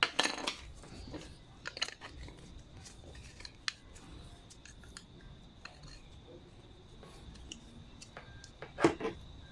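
Light clicks and taps of small parts and tools being handled while lawnmower parts are refitted, with one louder knock near the end.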